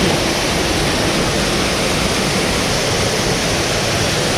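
Steady rush of water from a creek waterfall, an even, unbroken roar of falling and flowing water.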